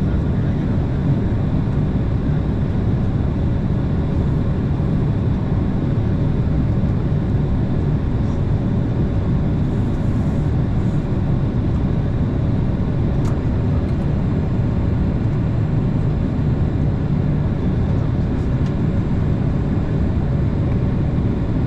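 Steady jet airliner cabin noise from the turbofan engines, a low even rumble with a faint steady tone, heard from inside the cabin. It does not rise or fall in level.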